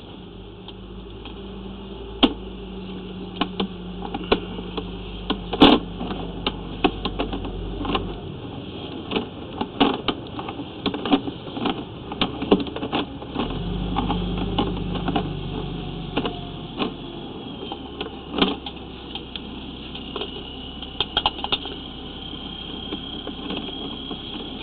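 Sewer inspection camera's push cable being pulled back out of the pipe: irregular clicks and knocks throughout, over a low hum that stops about eight seconds in and returns briefly around fourteen seconds.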